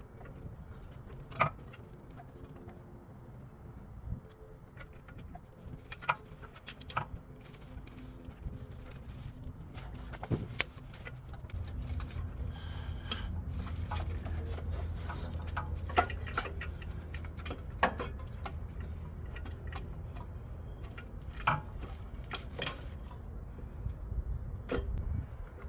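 Scattered metallic clinks and taps of hand tools and small metal parts at work in an engine bay, with a low steady hum setting in about halfway through.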